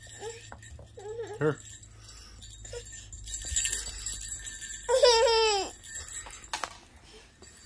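Small metal jingle bells on a handheld ring toy being shaken, jingling for a couple of seconds in the middle. Right after the jingling comes a short high-pitched voice that falls in pitch at its end.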